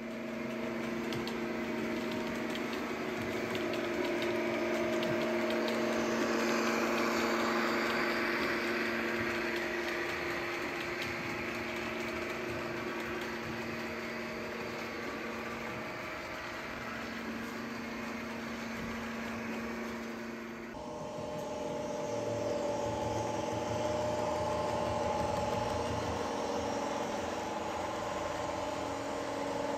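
Model railway diesel locomotive running on the layout: a steady whirr of motor and gears with wheel noise on the track. The sound changes abruptly about two-thirds of the way through, the hiss dropping away and a different set of tones taking over.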